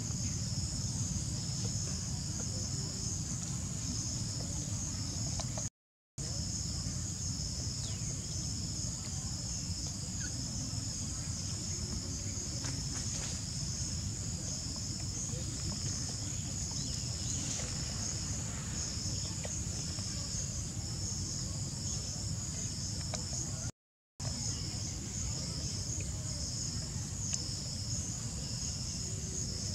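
Steady chorus of insects, a high, finely pulsing trill, over a low rumble; the sound drops out briefly twice.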